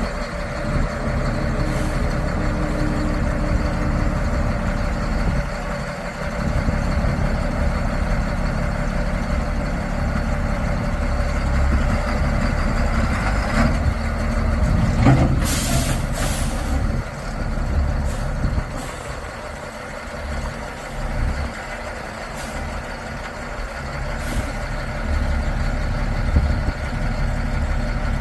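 Semi-truck's diesel engine running at low speed as the rig is manoeuvred into a parking spot, with a loud hiss of air brakes a little past halfway through.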